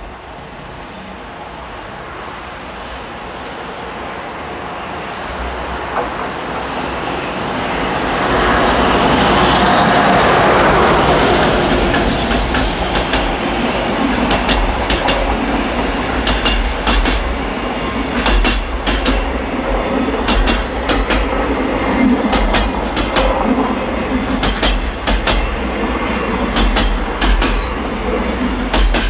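Electric freight locomotive approaching and passing, loudest about a third of the way in, followed by a long container freight train rolling by close, its wheels clattering over rail joints in a steady clickety-clack.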